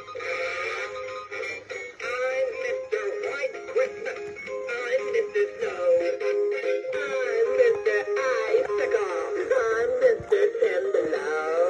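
A 2006 Gemmy Blue Vest Snowman, an animated singing figure, singing a Christmas song with backing music through its small built-in speaker, the sound thin with almost no bass. The figure is working after a full repair.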